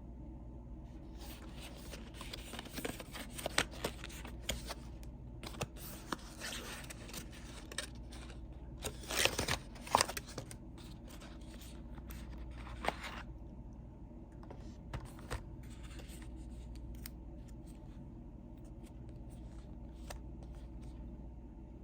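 Packaging being handled and opened: scratching, scraping and tearing with sharp clicks and snaps, busiest in the first half with the loudest bursts about halfway through. After that come only occasional clicks over a steady low hum.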